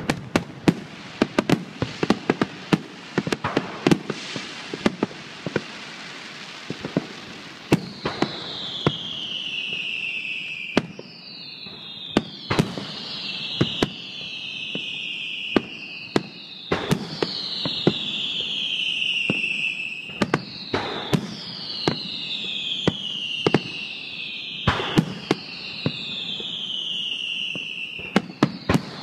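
A fireworks display fired close by: loud, sharp bangs of aerial shells bursting in quick succession. From about eight seconds in come overlapping high whistles that fall in pitch, one every second or two.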